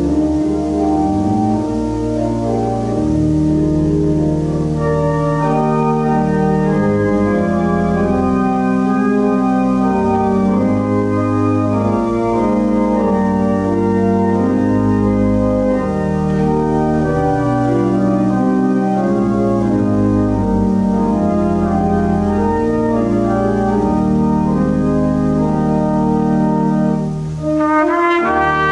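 Church pipe organ playing slow, sustained chords, the harmony shifting every second or two. Just before the end the organ briefly drops back and a trumpet enters with a bright note over it.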